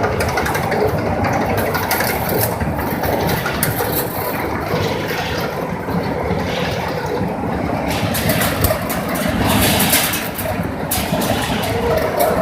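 Automatic cage spot-welding machine for concrete-pipe reinforcement cages running: a steady loud machine noise, with a run of sharp clicks and hisses about eight to eleven seconds in.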